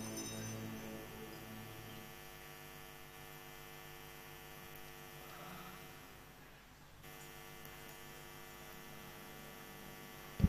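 Steady electrical mains hum, a buzz with many evenly spaced overtones. The tail of music fades out over the first two seconds.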